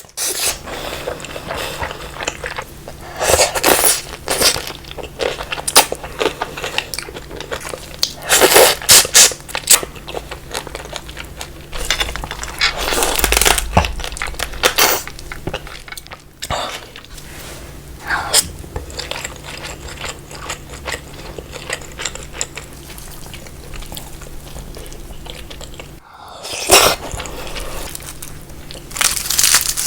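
Close-miked eating of marinated raw crab (gejang): irregular bursts of crunching and chewing, with crisp cracks of shell being bitten.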